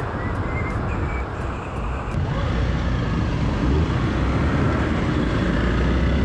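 Motorcycle riding in city traffic: engine and road noise heard from the bike's own camera, with a steady low rumble that grows louder about two seconds in.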